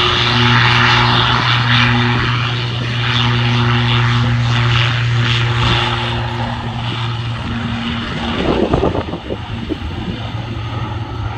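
Twin-turboprop ATR 72 airliner's engines and propellers running with a steady low drone and a high hiss as it moves along the runway. A brief rough buffeting about eight and a half seconds in, after which the sound is a little quieter.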